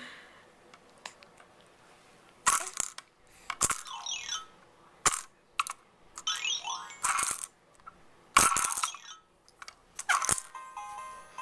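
Baby smacking an electronic musical toy on a play mat: several sharp slaps and rattles, with the toy answering in short chirpy electronic sounds that glide in pitch, and starting a simple electronic tune near the end.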